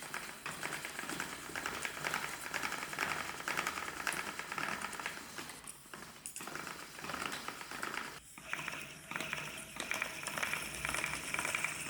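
Restored 19th-century handmade wooden spinning wheel being worked, its mechanism clattering with dense fine ticking that breaks off briefly twice.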